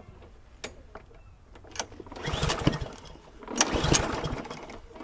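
Webb petrol lawnmower being pull-started with the choke on: two pulls on the recoil starter, about two and three and a half seconds in. The engine turns over but does not fire, a no-start that the owner suspects lies in the spark plug.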